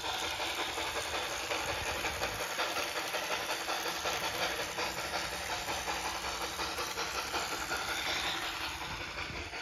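Sound system of a Bachmann HO-scale Pennsylvania Railroad K4 model steam locomotive playing steam sounds from its small onboard speaker as it runs: a steady hiss with a quick regular chuff.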